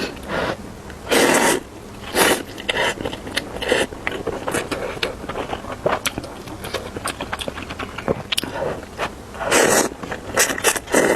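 A person slurping and chewing instant noodles up close: several loud slurps lasting about half a second each (about a second in, two seconds in, and near the end), between many small wet clicks of chewing.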